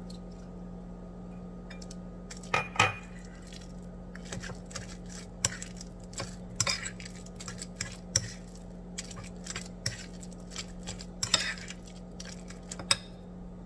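Metal cutlery scraping and clinking against a ceramic bowl while stirring a wet fish-paste mixture, in irregular knocks. The loudest knocks come about three seconds in and again near the end.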